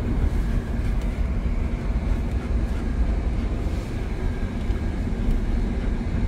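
Steady road and engine noise inside a moving car's cabin: a continuous low rumble with a steady hum.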